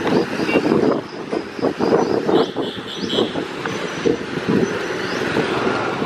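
Wind buffeting the microphone of a camera carried on a moving bicycle, with uneven knocks and rattles from the ride over the road.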